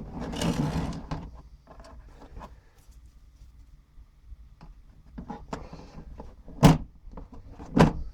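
Snap ring pliers and their case being handled: a scraping rustle in the first second, scattered small clicks, then two sharp clacks about a second apart near the end.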